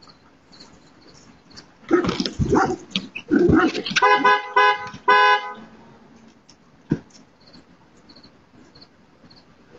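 Dog barking with a scuffle as a person scrambles onto a parked car, followed by a car horn sounding about five short blasts in quick succession.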